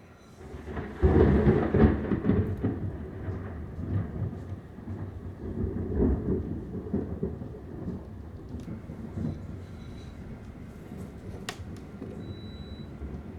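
Thunder: a sudden loud clap about a second in, rolling on as a low rumble that swells again around six seconds and then slowly dies away.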